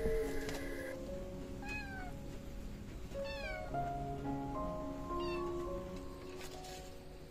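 Domestic cat meowing three times, short calls that each fall in pitch, about a second and a half apart, over background guitar music.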